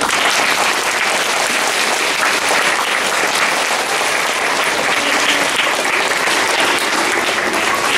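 A large audience of schoolchildren applauding, starting suddenly and keeping up steadily.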